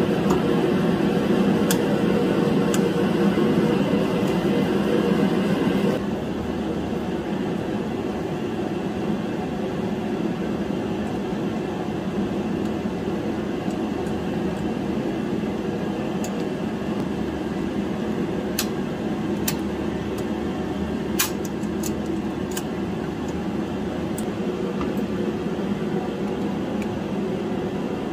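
Steady mechanical hum, like a fan or blower running, a little louder for the first six seconds and then level. A few short, light clicks come in the second half.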